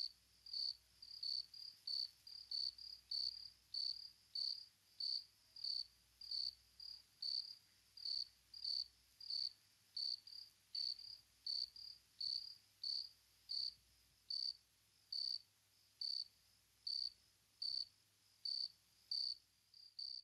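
A cricket chirping at an even pace, a little over two short chirps a second, all at one high pitch.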